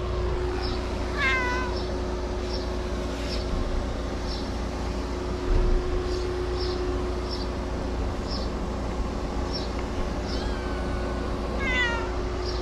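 Stray cats meowing: two drawn-out meows falling in pitch, about a second in and again near the end. A short high chirp repeats every half second or so throughout over a steady low hum, and there is a brief thump about halfway through.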